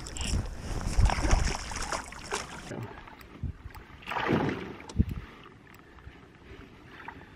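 Wind on the microphone and the handling noise of landing a small largemouth bass in a canoe: rustling and scuffing, with a sharp knock against the hull about five seconds in.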